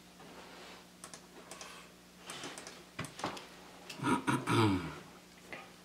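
Scattered light taps and clicks as a Windows tablet is operated, and about four seconds in a brief wordless murmur from a man's voice, the loudest sound.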